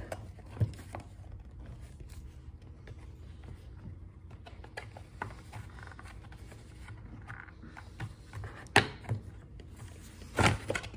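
Plastic top cover of a Stihl FS110 trimmer's power head being worked and pried loose by hand: scattered small clicks and knocks, a sharp crack about nine seconds in, and a louder clatter near the end as the stuck cover comes free.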